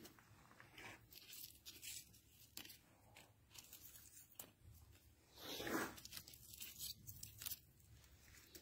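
Faint scattered rustling and scraping noises, with one louder scrape lasting under a second about five and a half seconds in.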